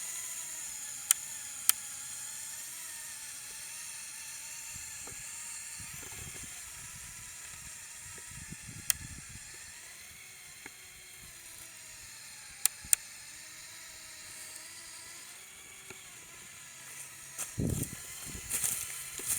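A LEGO Technic RC car's electric drive motors and gearbox whining steadily, the pitch wavering as the load changes, with a few sharp clicks from the drivetrain. A louder rough scraping rustle comes near the end as the model goes over rough ground.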